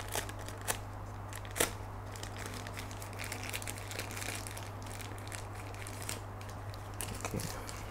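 Packaging crinkling and rustling as the inner pack holding the in-ear monitors is opened by hand. There are a few sharp clicks in the first two seconds, over a steady low hum.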